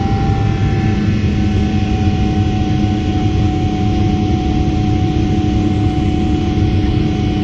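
Boeing 777-300ER's GE90-115B turbofan heard from inside the cabin during the climb after takeoff: a loud, steady rushing noise with a constant tone running through it.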